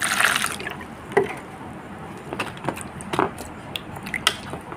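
Tap water splashing onto a green papaya in a plastic plate for about half a second. Then a hand rubs and turns the wet papaya, with scattered small knocks against the plate.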